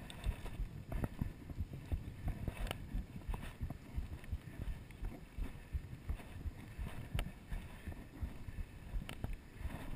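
Footsteps crunching and thudding on a dry, rocky dirt trail, a steady run of dull thumps with sharp clicks of stones underfoot, heard through a body-worn action camera, with a little wind on the microphone.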